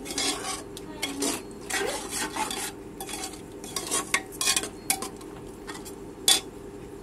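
Metal spatula stirring and scraping thick masala around the inside of a pressure cooker, in irregular strokes, with one sharp metal clack against the pot about six seconds in.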